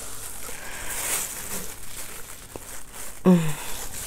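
Plastic bag rustling and crinkling as it is handled and opened, with a short vocal sound about three seconds in.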